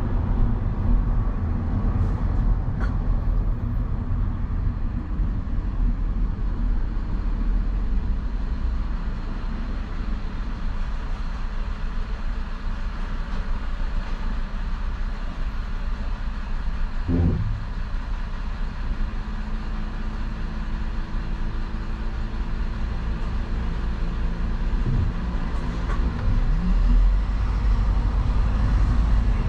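Steady low rumble of a vehicle driving through city traffic, with road and traffic noise around it and a brief pitched sweep about halfway through.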